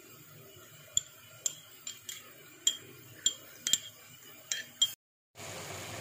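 Metal teaspoon stirring food colour in a small cut-glass bowl, clinking against the glass about nine times in four seconds with a short bright ring after each tap. The clinking stops suddenly near the end.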